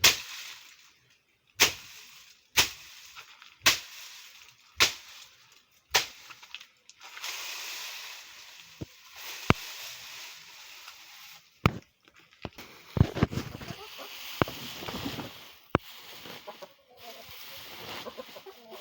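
A run of six sharp knocks, about one a second, then irregular scraping and rustling broken by a few more knocks.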